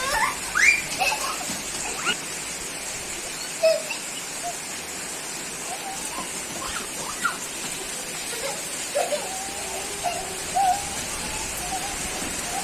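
Steady rain falling, an even hiss, with a few short faint calls or voices over it.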